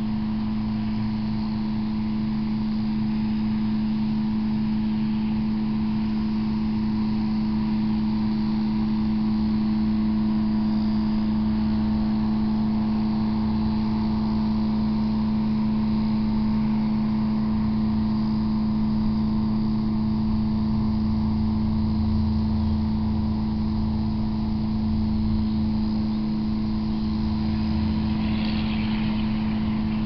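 A steady pitched mechanical hum over a low rumble, unchanging throughout.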